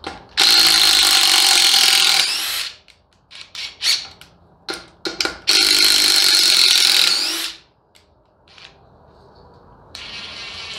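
Cordless DeWalt 20V impact drivers (DCF887 and DCF850 Atomic) running in two loud bursts of about two seconds each, working Spax screws in wood, each burst rising in pitch just before it stops. Clicks and knocks of handling fall between the bursts, and a fainter run of the tool comes near the end.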